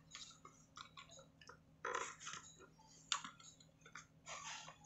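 Faint handling noises of a model shipping-container display box as its two halves are picked up and set down on a table: light taps and scrapes, with the sharpest click about three seconds in.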